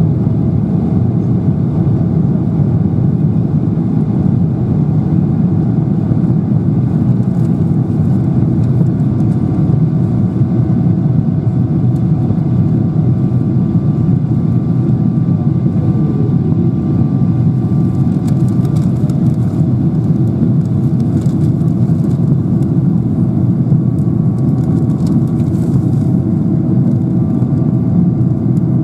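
Steady cabin drone of a Boeing 777-300ER climbing after takeoff: its GE90-115B turbofans and the rushing airflow, heard from inside the cabin as a deep, even rumble.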